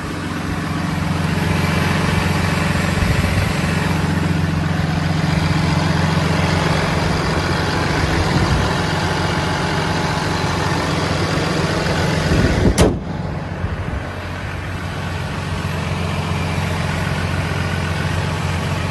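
A Ram 5500's 6.7-litre Cummins turbo-diesel idling steadily, heard close with the hood open. A single sharp knock comes about two-thirds of the way through.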